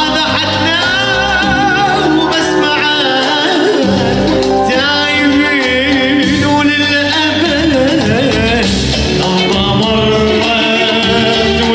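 Arabic song performed live: a male vocalist sings a long, ornamented line with wavering pitch over electronic keyboard accompaniment with held bass notes.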